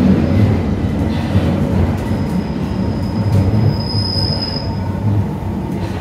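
1992-stock tube train heard from inside the car as it slows into a station: a steady low rumble of wheels and running gear. A thin high squeal comes in about two seconds in, swells, and dies away about three seconds later.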